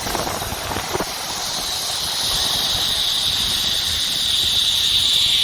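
Zipline trolley pulleys running along the steel cable: a steady high-pitched whine that grows louder as the rider picks up speed, with wind rumbling on the microphone.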